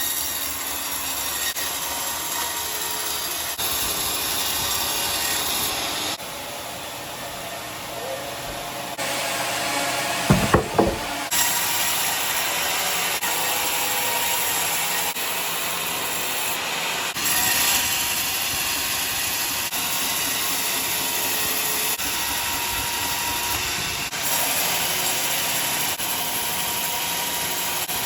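Powered sawmill saw cutting through a large log, a steady rasping hiss of blade in wood. The sound shifts abruptly several times, and there is a brief loud knock about ten seconds in.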